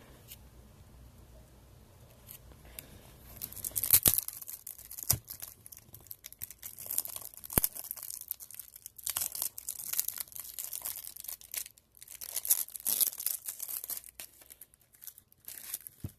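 Plastic shrink-wrap being torn and crinkled off a cardboard card-game deck box. It starts about three and a half seconds in and comes in irregular crackly bursts with a few sharp clicks.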